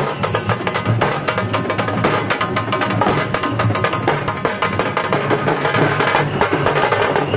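A street drum band plays a fast, dense rhythm: a barrel drum and several round frame drums beaten with sticks, at a steady loud level throughout.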